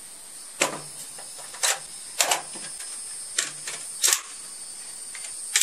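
Sharp metallic clicks and clacks of a PTR-91 rifle being handled between strings of fire, about six in all at uneven intervals, the last the loudest.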